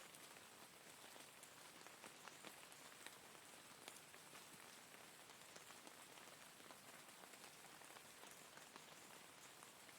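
Steady rain falling, with a soft even hiss and many small scattered drop ticks.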